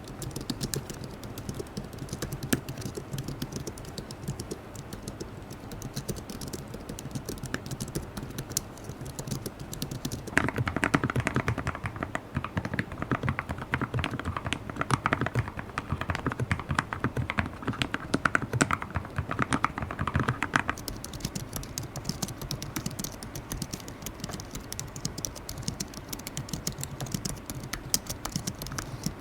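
Continuous rapid typing on a low-profile keyboard, a dense clatter of keystrokes. From about ten seconds in to about twenty-one seconds the clatter is louder and fuller.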